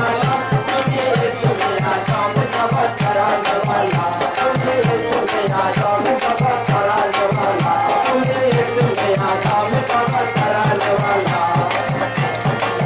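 Qawwali music: a wavering melody over a fast, steady drum beat, with sharp percussive clicks throughout.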